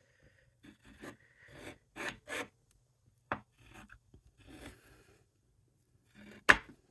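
Scoring stylus scratching along the grooves of a plastic template into thin cardstock in short strokes, with a sharp tap a little past the middle and a louder tap near the end.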